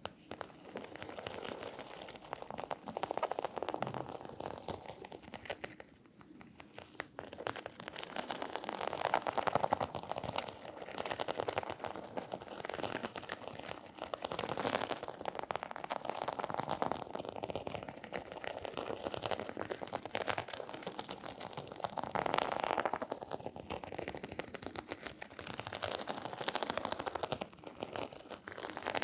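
ASMR tapping and scratching on objects: a dense, fast run of small clicks and scrapes, dropping off briefly about six seconds in.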